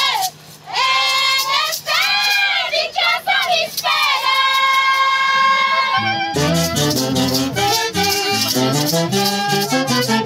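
Women of a pallas troupe singing together in high voices, ending on a long held note. About six seconds in, instruments strike up a quick tune with lower notes underneath.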